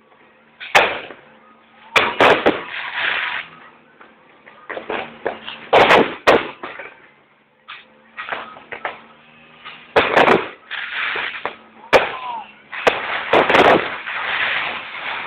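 Fireworks and firecrackers going off: a string of sharp, loud bangs a second or two apart, each with an echoing tail, turning into denser crackling near the end.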